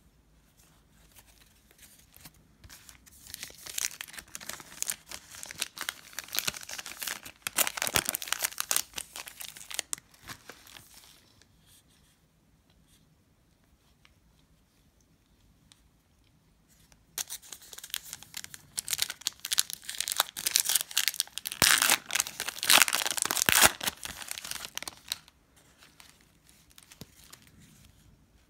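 Foil trading-card pack wrappers being torn open and crinkled by hand, in two spells of several seconds each with a quiet stretch of a few seconds between them.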